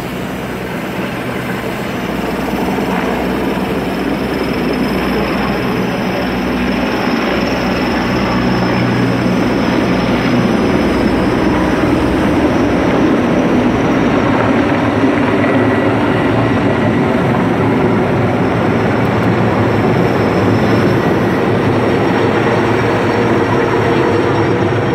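Heavy-lift helicopter overhead on a lift job, a steady rotor and turbine rumble that grows louder over the first several seconds and then holds.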